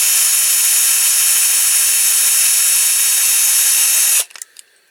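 Small electric drill running steadily at high speed, drilling out a domed rivet on a die-cast toy lorry with a small bit. It stops suddenly about four seconds in, followed by a few light clicks.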